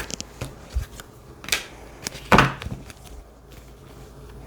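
Tarot cards being handled on a table: a few soft taps and slides, the loudest about two seconds in.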